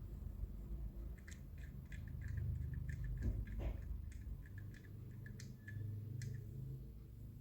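Faint, scattered small clicks and light taps as a chrome paint pen and a small model fire truck are handled, over a low rumble of handling noise.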